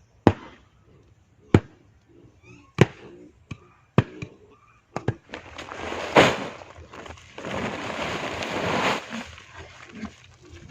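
A series of about five sharp knocks or blows, a little over a second apart, followed by several seconds of loud scraping or rustling noise.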